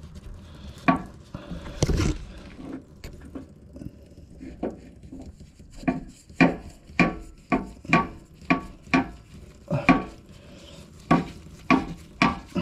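Sharp metallic clinks of a wrench being worked on a loosened AHC suspension accumulator. They are few at first, then come about one or two a second from about six seconds in.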